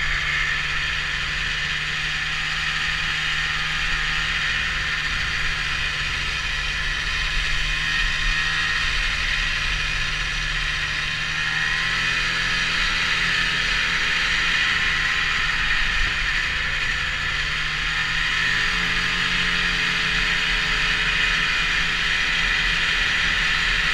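Snowmobile running steadily at cruising speed, engine drone mixed with track noise, its pitch easing and picking up slightly a couple of times.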